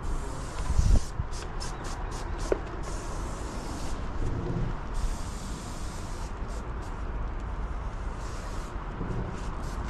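Airless paint spray gun hissing in short on-off bursts, over a steady low rumble, with a dull knock about a second in.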